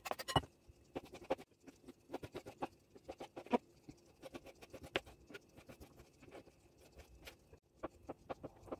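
Kitchen knife knocking on a plastic cutting board in irregular runs of light strokes while slicing pickled cucumbers and boiled eggs. The loudest knocks come at the start, as chopped chicken is scraped off the board into a glass bowl.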